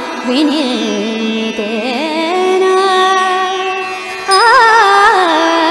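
A Sanskrit devotional hymn to the goddess Saraswati, sung in slow, drawn-out, ornamented phrases. The voice holds one long note through the middle, then comes back louder with a winding phrase near the end.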